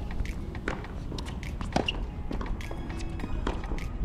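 Tennis practice rally: sharp pops of rackets striking the ball and the ball bouncing on the hard court, a strike or bounce roughly every half second to second.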